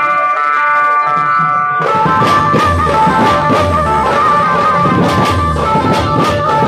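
Dhumal band playing a sawari dhun procession tune, loud through a large speaker rig. It opens on a held organ-like chord, then about two seconds in drums, deep bass beats and a stepping melody come in.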